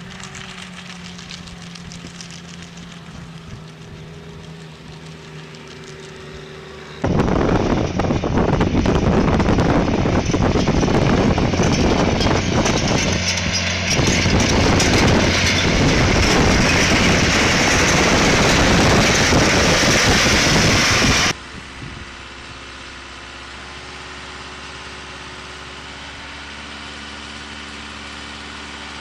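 Farm tractor engines running in a string of short clips: a steady engine hum at first, then a much louder, noisy stretch from about seven seconds in that cuts off suddenly about twenty-one seconds in, and then a steady engine hum again.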